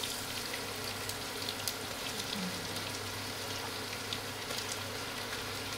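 Sliced onions frying in plenty of hot oil, a steady sizzle with scattered sharp crackles: the first stage of frying onions into crisp beresta.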